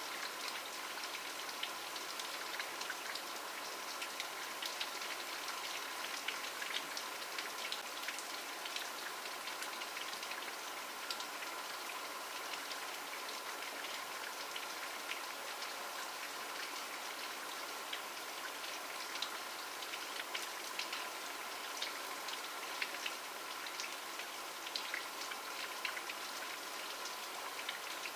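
Steady rain falling, an even hiss with many sharp ticks of single drops striking a surface.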